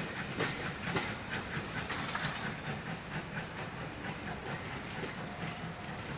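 Train hauled by a saddle tank steam locomotive rolling through, with a steady hiss of steam and a rhythmic clicking of wheels over the rail joints.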